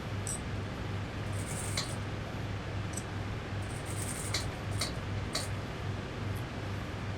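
A steady low hum that pulses about twice a second, with several short sharp clicks or snips scattered through it.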